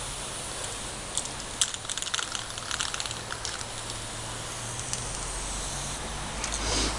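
Chalk scraping on asphalt as letters are drawn: a run of short scratchy strokes, with a low rumble coming in near the end.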